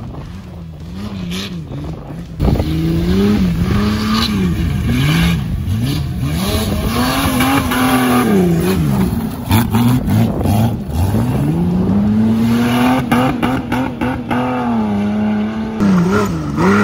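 Off-road race vehicle's engine revving hard and easing off over and over, its pitch rising and falling as the driver works the throttle on a loose, climbing course. A few sharp knocks come through around the middle.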